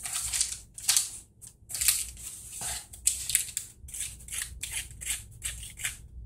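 Small plastic spoon stirring and scraping a powder-and-water candy mix in a plastic tray compartment, in quick, uneven scratchy strokes.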